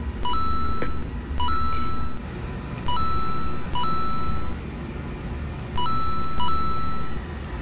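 Repeated beeping: a short lower note steps up to a longer held higher tone, about six times in uneven pairs, over a steady low rumble.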